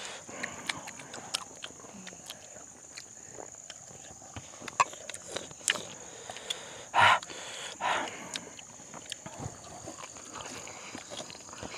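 Close-miked eating sounds: chewing, smacking and short clicks, with two louder crunchy bites about seven and eight seconds in. A steady high-pitched whine runs underneath.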